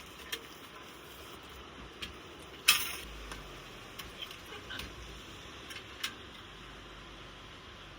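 Scattered small clicks and taps of objects being handled, with one sharp, much louder click about a third of the way in, over a quiet background.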